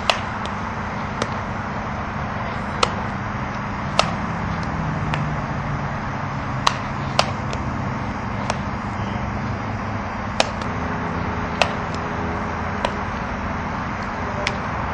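Sharp, short knocks of a softball striking bat and glove during an infield ground-ball drill, about ten of them at irregular intervals over a steady background hiss.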